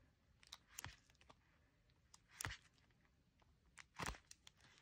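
Faint clicks and soft plastic ticks of a trading-card binder's plastic sleeve pages being handled and turned, about half a dozen short sounds, the clearest about two and a half and four seconds in.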